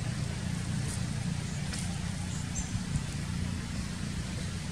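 Steady low outdoor rumble, with a soft click about a third of the way in and a few faint high chirps near the middle.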